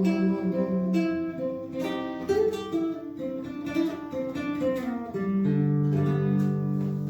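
Acoustic guitar playing the closing phrase of a song, picked notes and strums, settling about five seconds in on a final chord left to ring.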